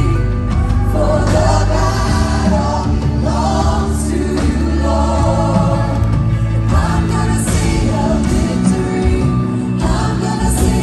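Live gospel worship music: a choir of voices singing over a band with drums and a strong bass line, loud and continuous.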